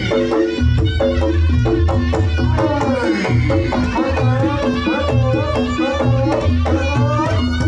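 Reog Ponorogo gamelan music: kendang drums beating heavy low strokes under steady ringing gong tones, with a wavering melody line running above.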